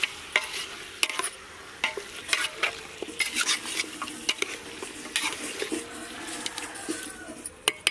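Steel spoon stirring chicken pieces in an aluminium pot, scraping and clinking against the pot's sides many times at an uneven pace.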